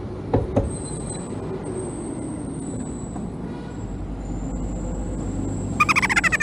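Air hissing from a petrol-station tyre inflator hose as a Vespa S125 scooter's tyre is topped up. It is a thin, steady high whistle that sinks slowly in pitch, over a low rumble. Near the end there is a short, fast rattling buzz.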